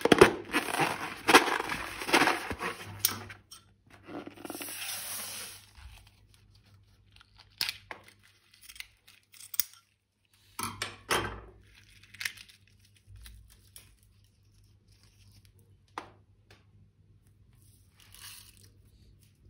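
Slime being handled and squeezed, with crinkling, crackling and tearing sounds: a dense run for about the first three seconds, a shorter burst around four to five seconds in, then scattered clicks and brief rustles.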